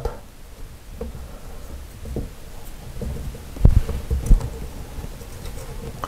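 Allen wrench turning in the locking set screw of a metal faucet lever handle: low handling noise with a few faint clicks, and two louder soft knocks about three and a half and four and a half seconds in.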